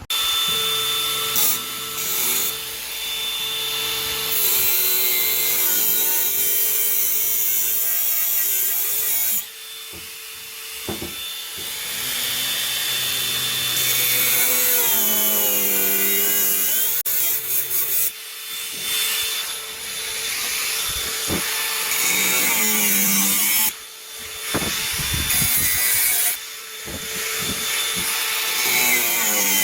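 Electric power tool working wood, running in several long passes with brief pauses between them, its motor pitch rising and falling as it works.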